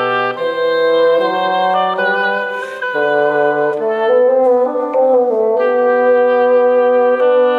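Oboe and bassoon playing a duet, the oboe taking the upper line above the bassoon's lower notes, moving through a series of held notes.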